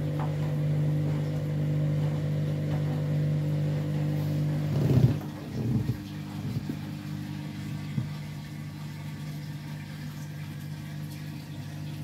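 Candy front-loading washing machine's drum turning at speed with a steady motor hum. About five seconds in there is a brief knock and the drum stops, leaving a quieter hum. The load is tangled into one lump and the machine is abandoning its spin because the load is unbalanced.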